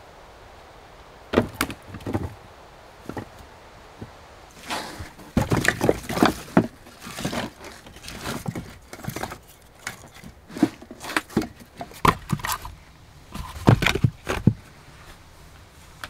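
Dry split firewood logs knocking and clattering together as they are handled and stacked, with a few separate sharp wooden knocks first.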